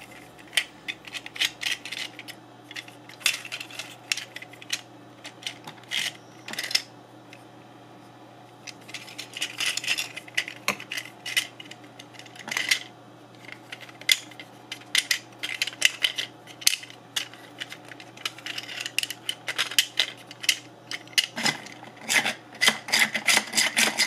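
Clicking, rattling and rubbing of 3D-printed plastic gears, levers and sliding parts on a print-in-place toaster test model being worked by hand. The clicks come irregularly and thin out for a couple of seconds about a third of the way in. They grow denser near the end.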